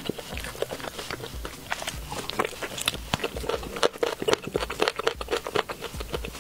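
Close-miked crunching and chewing of crispy-coated fried chicken, a quick, uneven run of crackling bites, as the chicken is torn apart and eaten.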